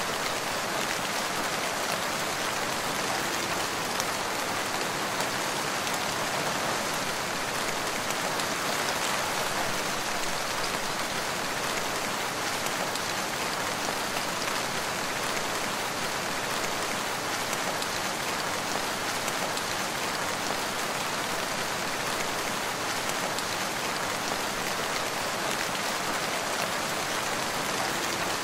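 Steady rain falling, an even hiss of countless drops that keeps the same level throughout, with no single drop or other event standing out.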